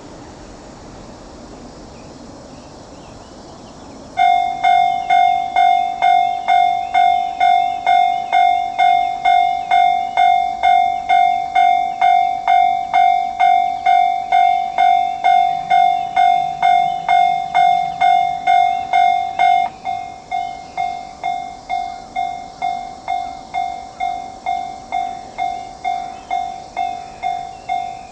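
Japanese level-crossing warning bell starts about four seconds in, a ringing electronic clang repeating about twice a second: the signal that a train is approaching. About two-thirds of the way through it turns noticeably quieter and keeps ringing.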